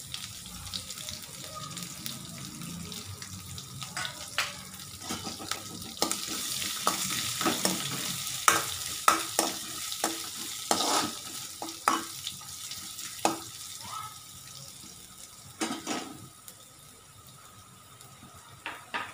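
Cumin seeds, garlic, ginger and green chilli sizzling in hot ghee in a metal kadai while a spoon stirs them, scraping and clicking against the pan. The sizzle is strongest in the middle and dies down over the last few seconds.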